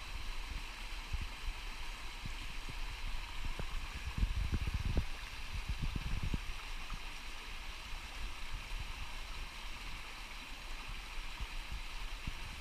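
Small stream running steadily over stones, a constant rushing hiss. Low thumps and rumble on the microphone come and go, heaviest about four to six seconds in.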